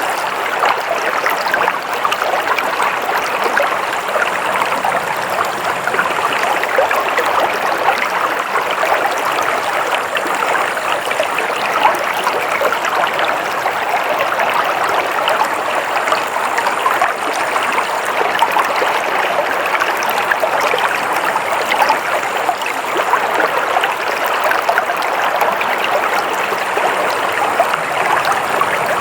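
Stream water flowing and trickling steadily, a continuous babbling wash with many small splashes.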